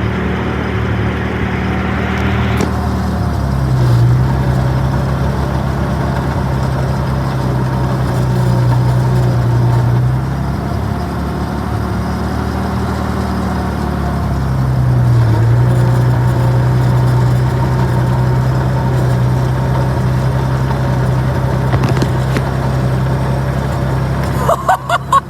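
Clarktor tug's engine running while driving, its note dropping about three seconds in, sagging around the middle and picking up again.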